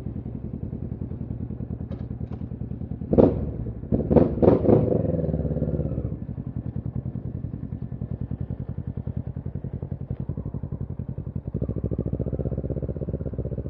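Kawasaki Z650's parallel-twin engine idling with an even, rapid beat, and a few loud sharp clattering knocks about three to five seconds in.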